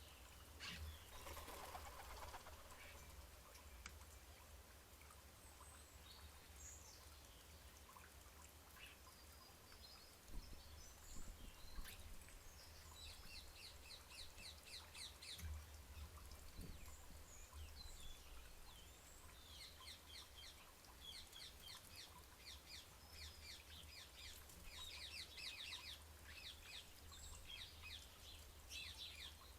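Faint chirping of small garden birds in quick runs of repeated high notes, busiest in the second half, over a low steady rumble.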